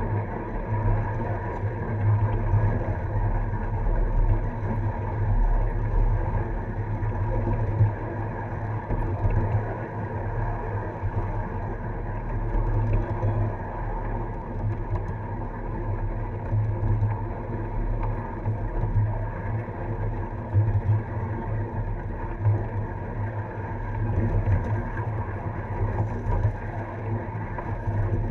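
Steady rumble of a ride-on miniature railway train rolling along the track, its wheels running on the rails close to a camera mounted low on the caboose.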